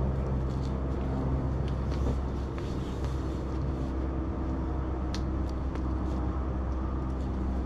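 A steady low mechanical hum, like an engine running, with a few faint ticks now and then.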